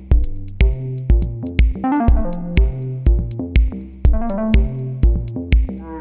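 Electronic background music: a drum-machine beat at about two beats a second under synthesizer notes and quick melodic runs.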